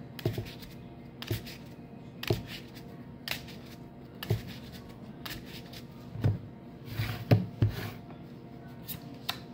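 A deck of Neapolitan playing cards being shuffled by hand, with soft slaps of the cards about once a second and a few quicker ones near the end.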